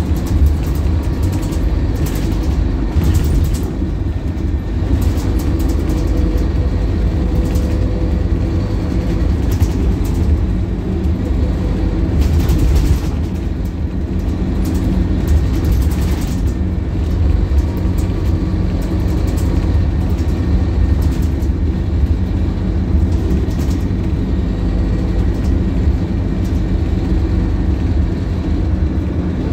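Scania K280UB city bus under way, heard from the rear of the cabin: the rear-mounted Scania DC9 five-cylinder diesel runs steadily with a low rumble and road noise, with scattered clicks and rattles from the interior.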